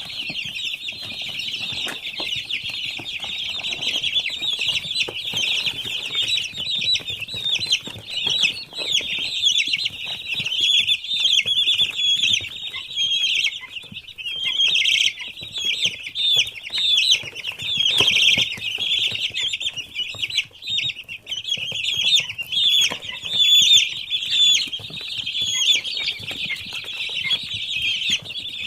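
A large flock of week-old chicks peeping continuously, many high chirps overlapping into a steady chorus.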